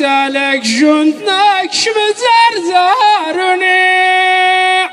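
Ahwach song: a high male voice sings an unaccompanied, ornamented line with quick turns in pitch. It settles on one long held note for about a second and breaks off just before the end.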